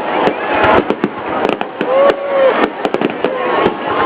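Aerial fireworks going off in a rapid series of sharp bangs and crackles.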